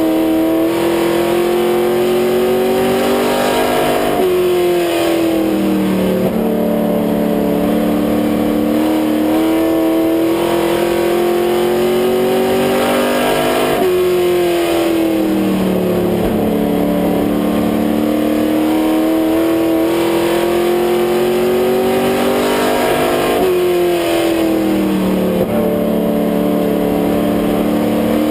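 Grand Stock race car's engine heard from inside the car. Its pitch climbs steadily for several seconds down each straight, then drops sharply as the driver lifts off for the turns, three times about ten seconds apart.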